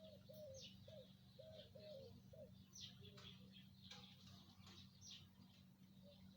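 Faint chirps from pet lovebirds, short high notes scattered throughout, with a run of short, lower arched notes in the first two and a half seconds.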